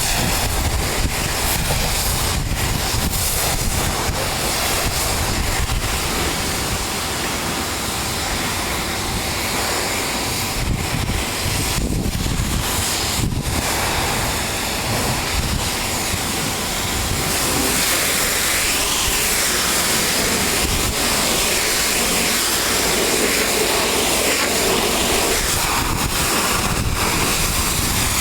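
Pressure washer spraying, a steady rushing hiss of the water jet.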